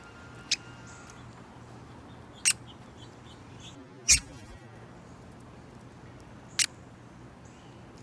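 Downy woodpecker giving short, sharp single 'pik' calls, four of them spread a second or two apart. The loudest, about halfway, comes with a flutter of wings as the bird flies in to the hand.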